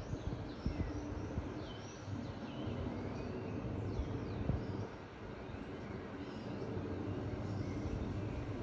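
Many birds chirping and calling together, with short, quick down-sweeping and rising calls overlapping throughout, over a steady low background rumble.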